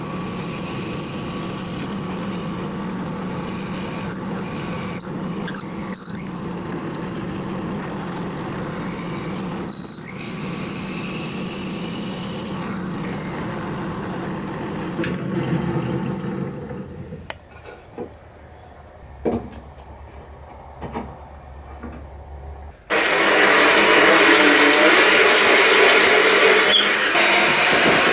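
Benchtop drill press running steadily as its twist bit bores into a block of pallet wood; after about seventeen seconds it runs down, followed by a few knocks as the block is handled. Then a Makita cordless drill starts drilling into the wood, much louder.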